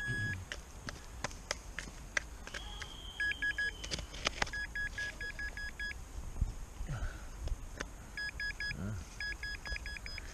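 Metal detector beeping over a buried target that the detectorist calls a dodgy signal, guessing it could be a coin or a tent peg. The beeps are high, quick and evenly spaced and come in several short bursts, with one steady high tone lasting about a second and a half a little over two seconds in. Sharp clicks are scattered throughout.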